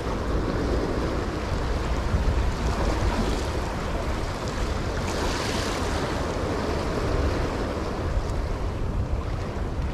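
Small waves washing against shoreline rocks, with wind rumbling on the microphone. The wash swells a little about five seconds in.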